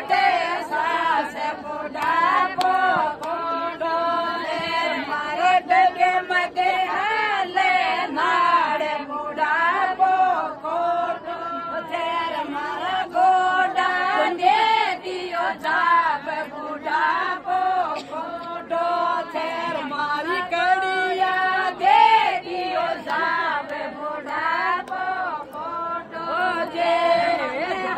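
A group of women singing a Shekhawati folk song of the chhuchhak celebration together, without pause.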